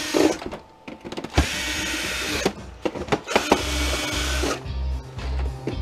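Cordless drill/driver running in several short bursts, backing screws out of a plastic printer-scanner housing, with small clicks between the bursts.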